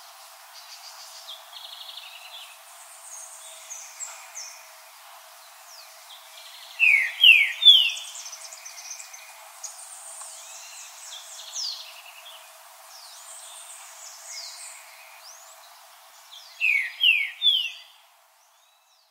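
Green-winged saltator singing two short phrases, each of three loud rising whistled notes, about ten seconds apart, over a steady background of other birds chirping and trilling. The sound cuts off near the end.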